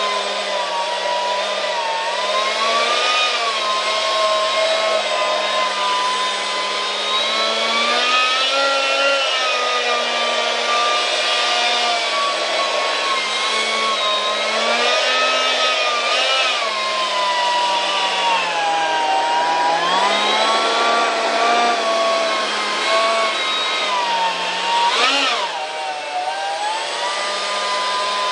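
Detrum 70 mm electric ducted fan unit running with a steady whine over a rush of air. Its pitch rises and falls as the throttle is worked, with a quick sharp blip up and back down near the end.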